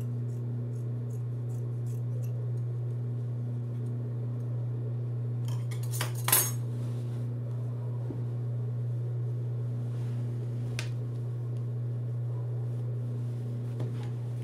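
Steady hum of an industrial sewing machine's motor running without stitching, with a quick series of small snips from scissors trimming excess fabric in the first couple of seconds and a louder clatter about six seconds in.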